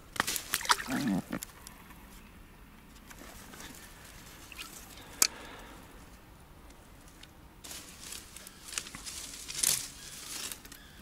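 Small splashes and drips of water, coming in scattered bursts with handling rustles, and a single sharp click about five seconds in.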